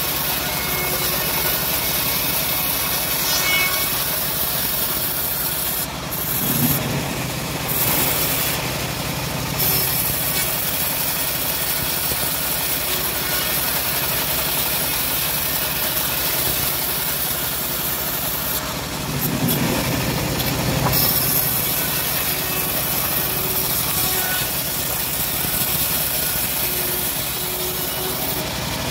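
Homemade band sawmill running and ripping a teak board lengthwise, a steady grinding saw noise with the blade cutting through the wood. It swells louder for a few seconds twice.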